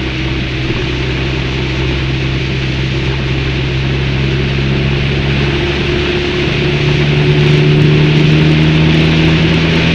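Motorcycle engine running at road speed under a steady rush of wind and road noise; a little over halfway the engine note steps up in pitch and gets louder as the bike picks up speed.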